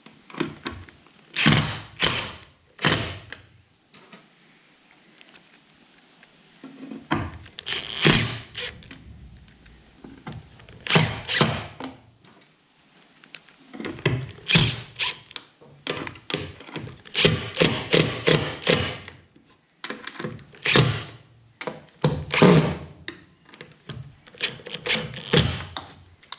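Cordless Makita drill run in short bursts, driving screws into the aluminium gunwale to fix down a rod-holder mount, each burst a cluster of sharp clattering knocks, repeated about every three to four seconds.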